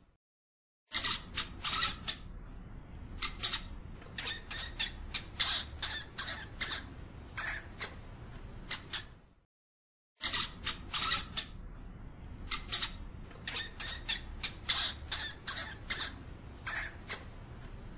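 European hamster squeaking: a run of short, high-pitched squeaks and chirps, often several in quick succession. The calls break off into complete silence for about a second twice, near the start and about halfway through.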